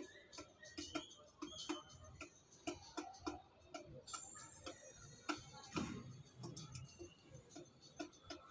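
Pigeon pecking rice and seed from a metal bowl: quick, irregular taps of its beak on the metal, about three or four a second.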